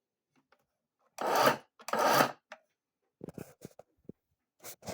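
Two short rasping scrapes a little over a second apart, followed by a cluster of light clicks and rattles and one more brief scrape near the end.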